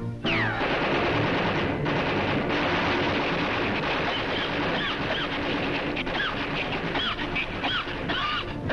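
Cartoon sound effect of a machine gun firing one long unbroken burst of rapid fire. It opens with a falling whistle, and short squeaky chirps ride over the rattle in the second half.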